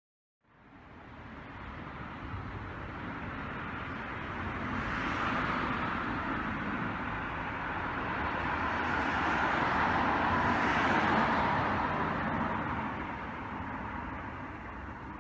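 Road traffic noise: a steady rush that swells twice, about five and eleven seconds in, then eases off.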